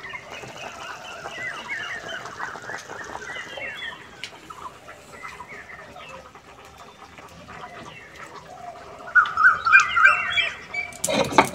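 Chickens clucking, with a louder run of clucks about nine seconds in. Near the end, rapid knocking and scraping begins.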